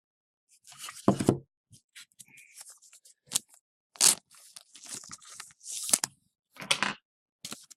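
Trading card pack wrapper and cards being handled: irregular crinkling and tearing of packaging. The loudest crackles come about a second in and again around four, six and seven seconds.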